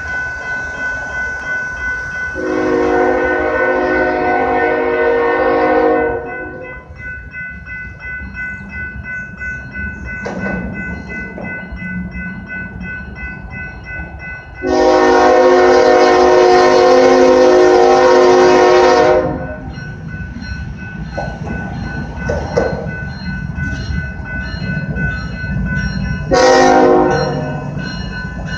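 Union Pacific diesel locomotive's air horn sounding the grade-crossing signal: two long blasts, then a short one near the end. Between the blasts a railroad crossing bell rings steadily at about two strokes a second, over the low rumble of the approaching train.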